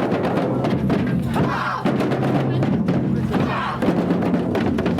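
Band music with drums beating, as from a band marching in a street procession, over voices in the crowd.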